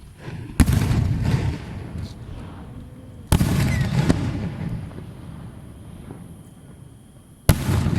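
Aerial fireworks shells bursting. There are three sharp bangs, about half a second, three seconds and seven and a half seconds in, each followed by a rolling rumble that fades over the next few seconds.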